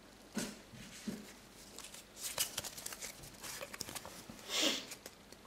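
Pokémon trading cards and their booster-pack wrapper being handled: soft rustles, crinkles and light clicks, with a longer rustle about four and a half seconds in.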